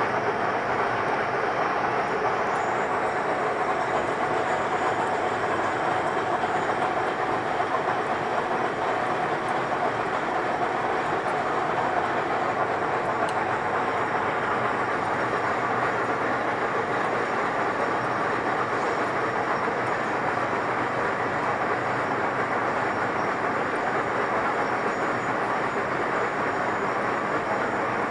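1M63F101 screw-cutting lathe running under test power, its spindle and headstock gearing giving a steady, even mechanical noise.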